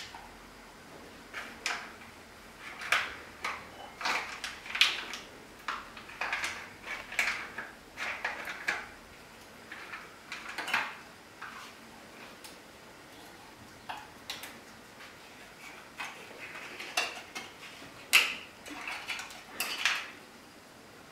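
Spoon clinking and scraping against metal bowls and cat food tins as wet food is dished out, in short irregular clatters with brief pauses between them.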